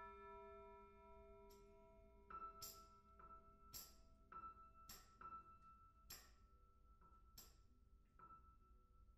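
Tubular bells, struck with a mallet just before, ringing with many overtones and fading. From about two seconds in, a Yamaha grand piano plays a slow line of about ten soft single high notes, some ringing over one another.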